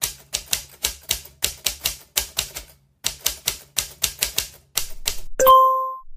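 Typewriter sound effect: a run of sharp keystroke clacks, about four a second, with a short pause near the middle, then a single bright bell ding near the end.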